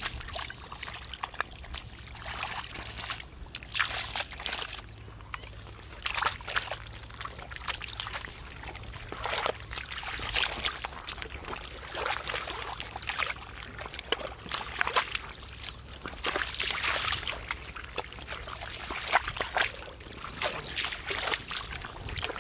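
Feet wading and stepping through shallow muddy water, with irregular splashes and sloshes throughout, along with hands digging in the wet mud.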